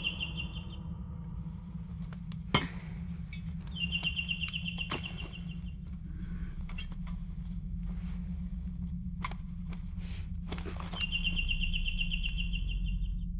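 Ambient chirping: a high, rapid trill that comes three times, each lasting about a second. Under it runs a steady low hum, with a few faint clicks.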